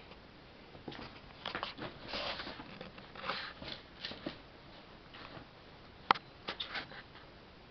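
Seven-week-old kitten scrabbling about inside a fabric play tunnel, the tunnel rustling and the claws scratching in irregular flurries. There is one sharp tap about six seconds in.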